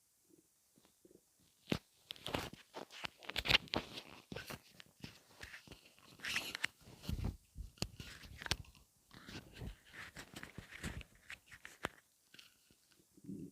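Stomach gurgling heard close up: an irregular run of pops, clicks and crackling gurgles. It starts about two seconds in and fades near the end.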